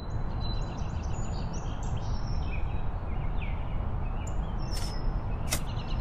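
Outdoor ambience: birds chirping and calling over a steady low rumble. A couple of sharp clicks come near the end.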